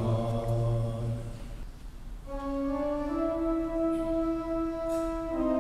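Organ playing sustained chords, entering about two seconds in after a low held note dies away, and moving to a new chord near the end.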